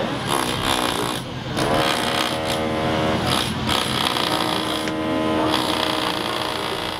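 A motor-driven tool running in spells over constant rough noise: its pitch rises briefly, holds steady, and drops away several times.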